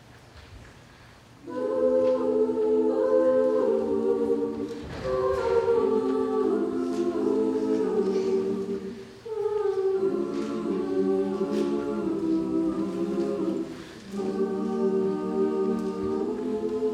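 Women's a cappella group singing in close harmony without accompaniment: held chords in phrases of a few seconds with short breaks for breath between them. The singing comes in about a second and a half in, after a quiet moment.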